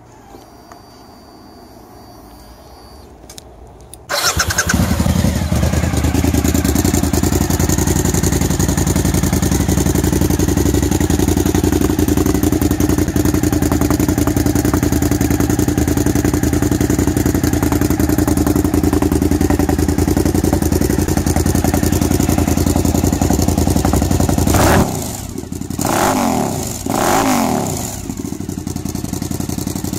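Suzuki SV1000S 90-degree V-twin firing up about four seconds in and running loud and steady through Dominator stubby stainless silencers with the baffles removed. Near the end it gets quieter, with two short throttle revs, then settles to a steady idle.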